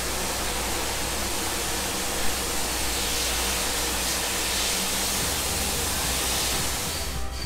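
Steady hiss of steam from Strasburg Rail Road's 2-6-0 steam locomotive No. 89 as it comes up to couple onto the coach.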